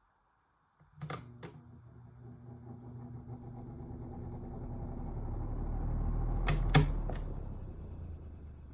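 A Galaxy 2150 machine running with the weird rattling noise it is faulting with. It starts with two clicks about a second in, then hums and rattles, growing louder to a sharp knock near the end before easing off.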